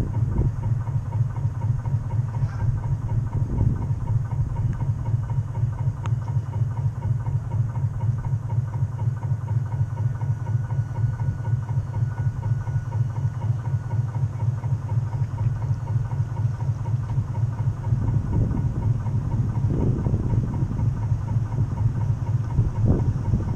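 The drive motor and propeller of a 1/12-scale radio-controlled model boat, picked up by a camera on its own deck: a steady, low throbbing drone. It turns rougher in a few surges near the end.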